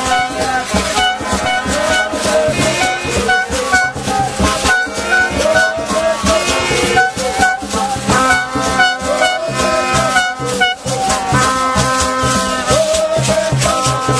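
Football supporters' band playing in the stands: hand drums beaten and shakers rattled in a steady, fast rhythm, with pitched notes and crowd noise over it.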